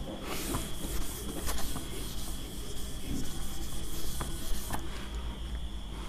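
Whiteboard duster rubbing across a whiteboard, wiping off marker writing: a dry, hissing scrub that stops about a second before the end.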